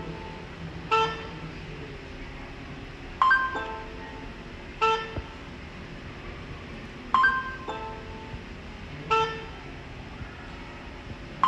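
Electronic chime tones from a computer Morse code encoder program, sounding as the Morse code of a typed name is entered. There are five chimes about two seconds apart, and two of them fall to a lower second note like a ding-dong.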